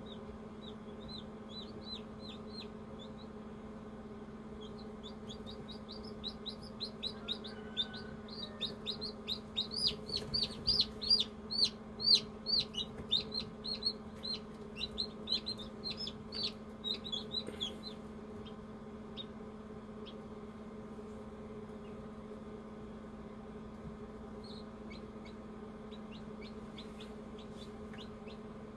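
Newly hatched chicken chicks peeping inside an incubator: a few short falling peeps at first, then a rapid run of loud peeps through the middle, then scattered peeps near the end. A steady low hum from the incubator runs beneath.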